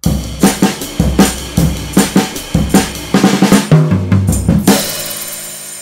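Short intro jingle played on a drum kit over a bass line: a steady beat of kick, snare and cymbals, ending on a final crash about five seconds in that rings out and fades.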